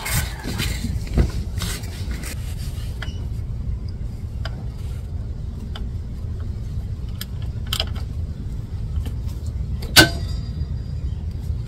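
Scattered metallic clicks and clinks of a socket on an extension and ratchet being handled and fitted to a bolt on the transmission, with one sharp click about ten seconds in, over a steady low rumble.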